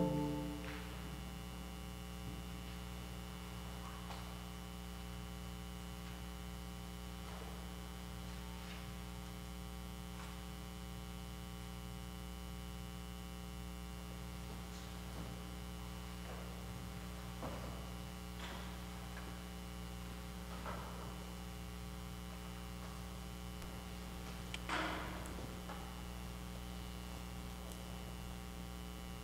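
Steady electrical mains hum with a few faint scattered knocks, the loudest about 25 seconds in.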